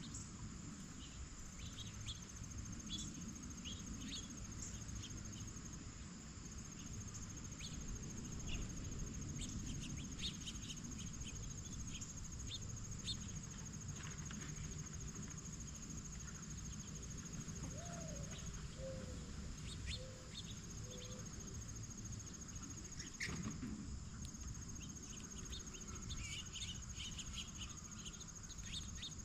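Insects trilling steadily in a high continuous tone, with scattered short bird chirps and calls throughout and a low steady outdoor rumble underneath.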